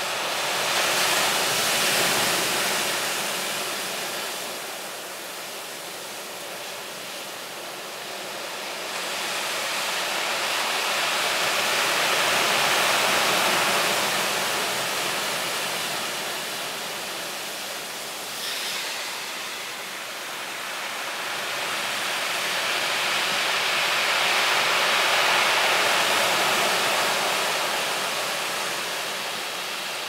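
High surf from an approaching typhoon breaking on a dark sand-and-gravel beach: a continuous rush of breaking waves and foaming wash that swells up and dies back three times, roughly every twelve seconds, as the big waves come in.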